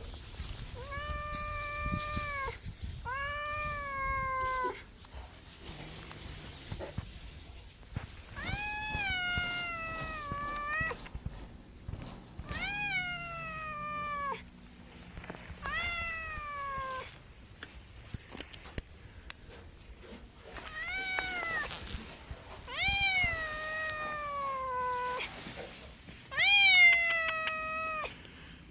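Domestic cat meowing repeatedly: about eight long, drawn-out meows, each falling in pitch at the end, with short pauses between them.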